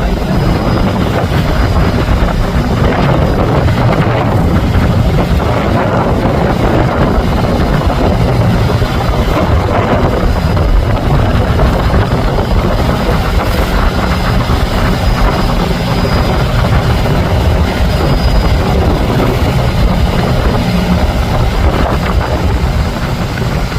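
Fishing boat's engine running steadily, a loud, unbroken low rumble.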